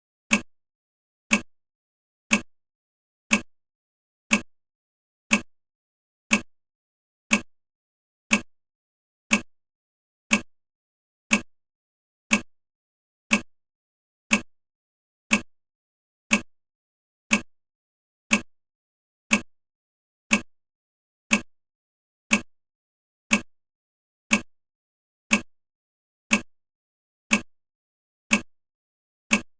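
Countdown timer ticking: a single crisp tick once a second, every tick the same, with silence between.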